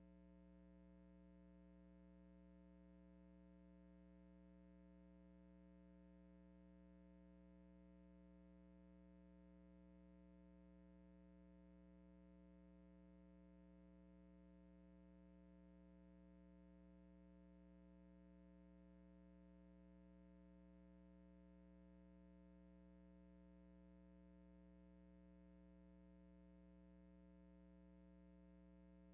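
Near silence, with only a faint, steady electrical hum that does not change.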